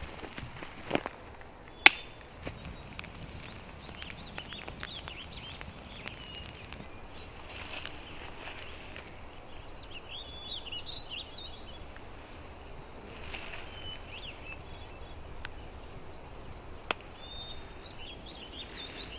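Outdoor woodland background with small songbirds singing short, quick chirping phrases on and off. A few sharp clicks or snaps cut through, the loudest about two seconds in.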